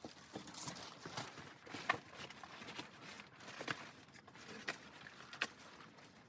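Footsteps in snow at a walking pace, about one and a half steps a second.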